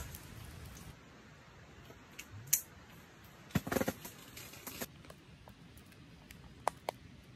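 Quiet rustling with scattered small clicks and taps: a short cluster of them about halfway through, and two sharp clicks near the end.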